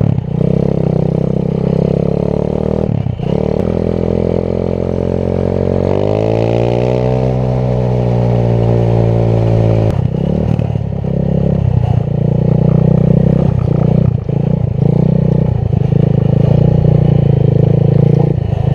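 125cc engine of a home-built quad running: a steady note that rises in pitch and holds as it revs up about six seconds in, drops back near ten seconds, then runs on choppy and uneven.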